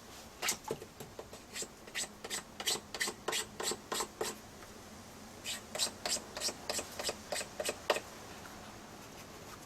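Short rasping strokes of a hand tool on a hard surface, about three a second, in two runs with a pause of about a second between them.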